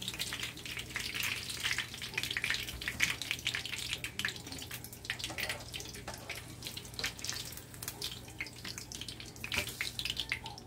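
Egg-battered stuffed chayote (huisquil) fritters sizzling and crackling in hot oil in a frying pan.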